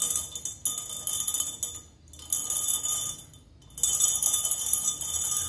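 A stirring stick rattling quickly against a stemmed wine glass and the glass marbles in the water inside, a rapid tinkling clink in three bursts with short pauses, the glass ringing lightly through it.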